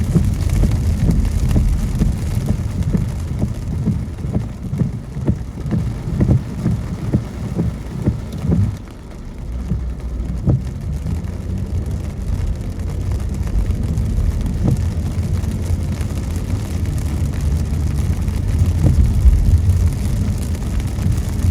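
Car driving on a wet road in the rain: a steady low rumble of road and tyre noise with raindrops tapping on the car. The sound drops briefly about nine seconds in, then picks up again.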